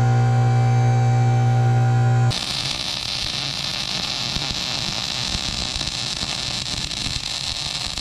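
A steady humming drone of several held tones, then about two seconds in, a MIG welder's arc starts: a steady, loud sizzling hiss with a slight crackle as a bead is laid on steel.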